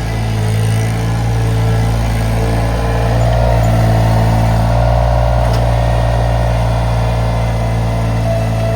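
Iron Rhino IR1200 mini skid steer running steadily under working load, with a higher whine coming in about three seconds in.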